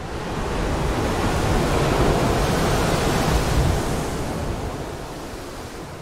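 Wash of noise like wind or surf opening a melodic dubstep track: it swells up, peaks about two to three seconds in, and slowly ebbs toward the end.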